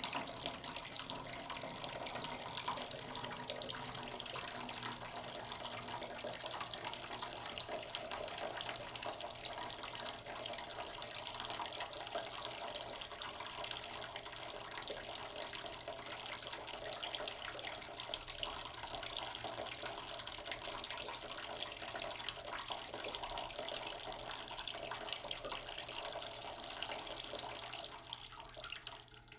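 Water running steadily from a tap into a sink, a continuous splashing flow.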